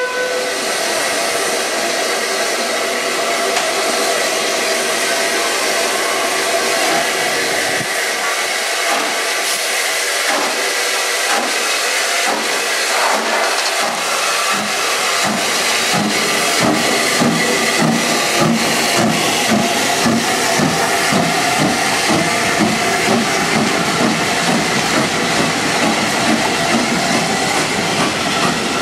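Metropolitan Railway steam tank locomotive and its wooden coaches passing slowly, with a steady steam hiss. From about halfway, a regular rhythmic beat of about two a second grows stronger as the engine and the coaches go by.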